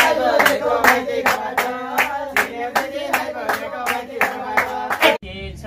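Hands clapping in a steady rhythm, about two and a half claps a second, along with male voices singing a Nepali Teej folk song. Near the end the sound breaks off abruptly and singing goes on without the clapping.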